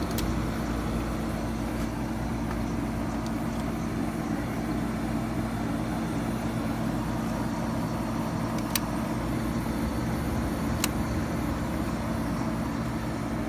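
1977 Fedders casement Weather Wheel window air conditioner running on low fan with the compressor on, cooling: a steady hum over fan and airflow noise. Two short sharp clicks come through about nine and eleven seconds in.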